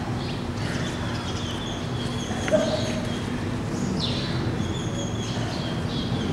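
Steady hiss with a low electrical hum, faint high bird chirps now and then, and a single sharp click about two and a half seconds in.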